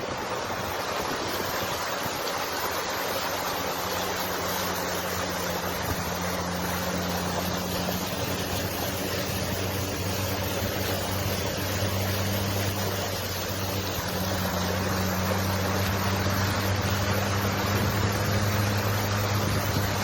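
Steady rush of floodwater, with a vehicle engine's low, even hum underneath that grows a little louder in the second half.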